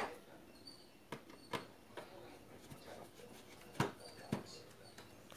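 Faint, scattered clicks and light knocks of a screwdriver working at the screws of an old radio-cassette recorder's opened chassis: about five small ticks, the loudest nearly four seconds in.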